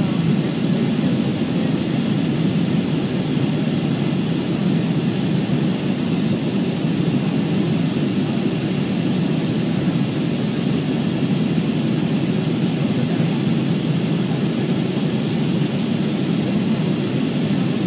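Steady, loud low cabin roar of a Boeing 737-300 in flight, heard from inside the cabin at a window beside its CFM56-3 turbofan engine.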